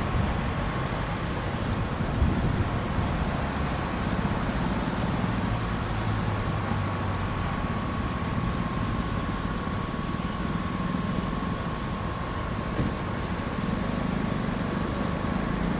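Steady noise of car traffic on a busy multi-lane city avenue. A faint, thin, steady high tone runs through it.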